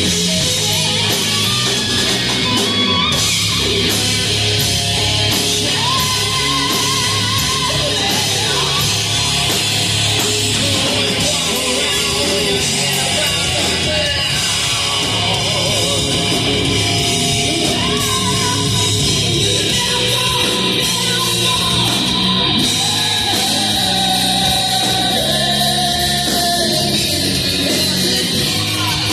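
Live hard rock band playing, with distorted electric guitar, bass, drums and singing, heard through a fan's recording in a large hall.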